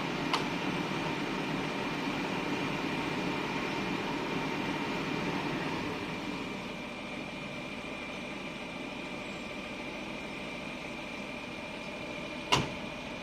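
Volvo crawler excavator's diesel engine running steadily with a steady high whine over it, easing a little about halfway through. A sharp knock sounds just after the start and a louder one near the end.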